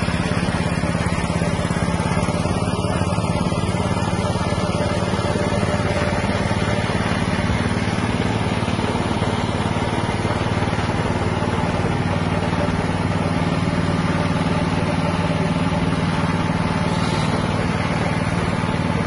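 Small petrol engine running at a steady speed, driving a fish-feed pellet extruder through a belt and pulley.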